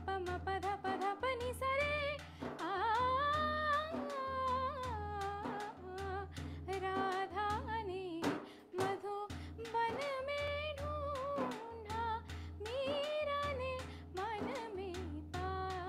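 A woman singing a Hindi devotional song (bhajan), her melody gliding and wavering with long held notes, over a rhythmic accompaniment with a steady low beat and regular percussive strokes.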